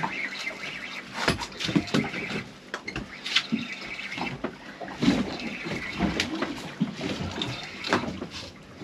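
Water lapping and slapping against the hull of a drifting fishing boat, with scattered sharp knocks.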